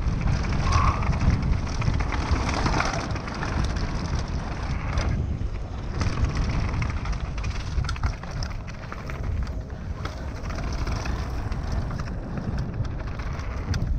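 Wind buffeting the action camera's microphone while a YT Tues downhill mountain bike rolls fast over a rough dirt trail: a steady rumble of tyres and frame with frequent small rattles and knocks.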